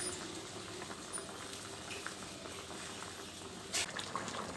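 Tamarind gravy with lentil dumplings simmering in a pot: faint, steady bubbling with small pops. A single brief knock sounds about three and a half seconds in.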